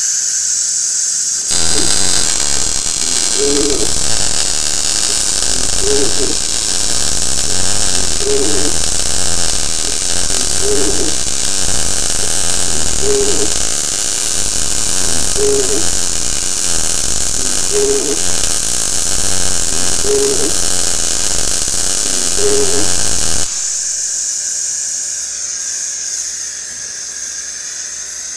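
MIG welding arc from a Blue Demon BLUEARC 140MSI 110 V inverter welder crackling and sizzling steadily as a full bead is run on a 3/16 in steel T-joint. The arc strikes about a second and a half in and stops about 23 seconds in, leaving a quieter steady hiss.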